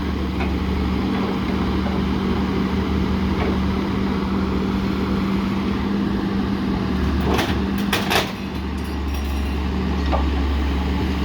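Vehicle engine idling steadily, with two sharp knocks about seven and eight seconds in.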